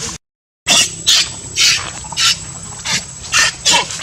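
A young macaque screeching in a string of short, shrill cries, about six or seven of them. There is a brief dropout to silence just after the start.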